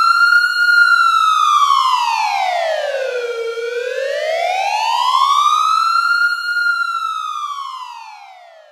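Siren wailing in slow sweeps: its pitch falls from high to low and climbs back up, then drops again as it fades out near the end.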